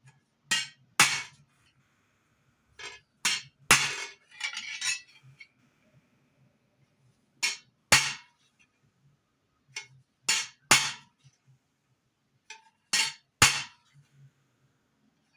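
Hammer tapping a metal tool against a metal buckle blank along a marked line: sharp metallic strikes in irregular groups of two or three, a few seconds apart, with a short metallic rattle about four seconds in.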